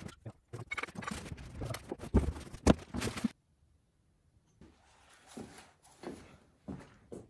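Drill press parts being unpacked from a cardboard box: rustling packaging and the knock and clatter of metal parts, with two heavy thumps as pieces are set down. After a sudden stop, softer rustling of paper as the instruction manual is handled.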